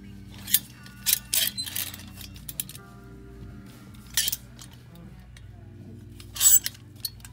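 Plastic clothes hangers clacking and scraping along a clothing rack as garments are pushed aside, in a handful of sharp bursts. Faint music with steady tones underneath.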